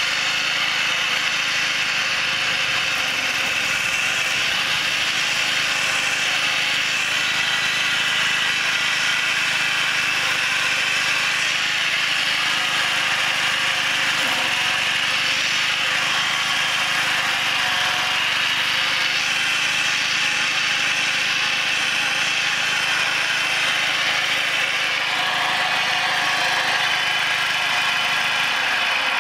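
Gas-engined Mott hammer knife flail mower running steadily under load, its spinning flail blades cutting through brush and small trees.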